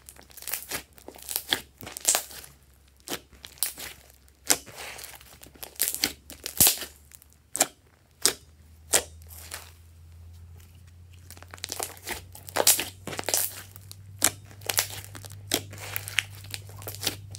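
Hands squeezing, pressing into and stretching a pink glossy slime, giving an irregular run of sharp sticky pops and crackles, some of them loud.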